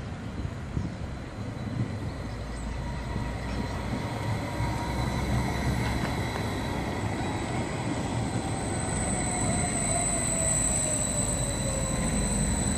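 Edinburgh Trams CAF Urbos 3 light-rail tram passing close by at low speed. A low rumble of wheels on rail sits under an electric motor whine that falls in pitch as it goes by, with thin steady high whistles, and the whole grows slowly louder toward the end.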